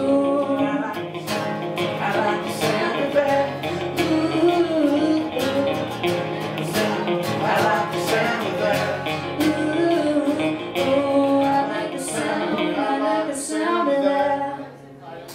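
Live acoustic guitar strumming with a voice singing the closing bars of a country-pop song; the music dies away near the end.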